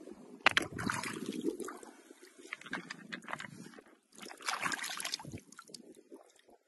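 A hand splashing into a shallow, stony creek and lifting out a rock: water sloshing in two bursts, about half a second in and again around four and a half seconds in, with a few sharp clicks among them.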